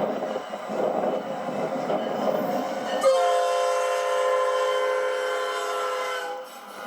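Train noise for about three seconds, then a train horn sounds one long, steady chord of several notes for about three and a half seconds. It stops shortly before the end.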